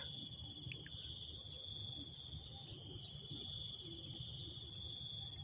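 A steady, high-pitched insect chorus of trilling crickets, with a faint low rumble beneath.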